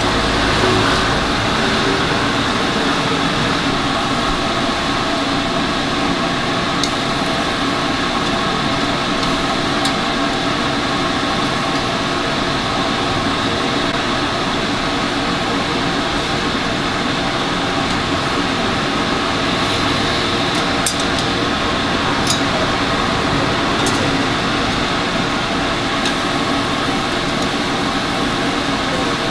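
Steady drone of a food stall's exhaust fan, with a few light clicks.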